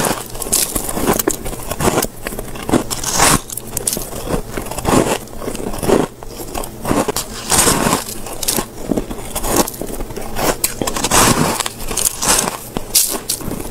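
Close-up biting and chewing of a lump of soft white ice: repeated irregular crisp, crackling crunches.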